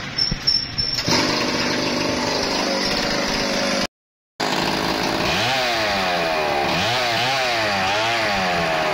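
Echo 1201 chainsaw's two-stroke engine starting about a second in after a few knocks, then running steadily. From about halfway it is revved up and down several times. It now runs on a new spark plug, the old plug having given no spark.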